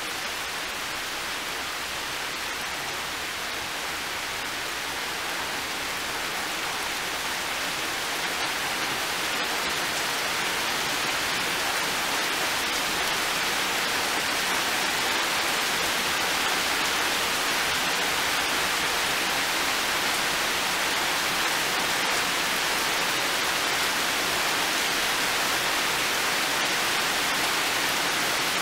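Heavy rain pouring down in a steady hiss, gradually getting louder through the first half.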